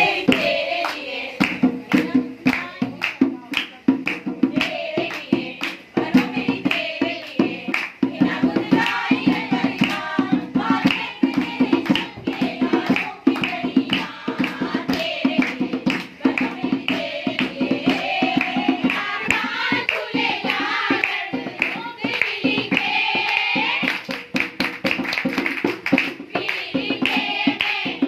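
Dholak (dholki), a two-headed barrel drum, played with bare hands in a quick, steady rhythm, with voices singing along to it.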